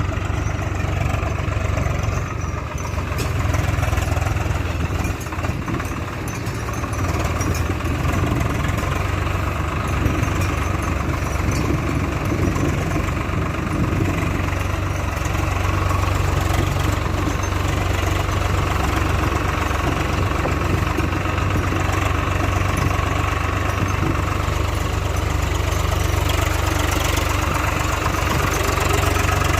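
Heavy diesel engine running steadily at low revs, a deep even hum with a brief dip about six seconds in.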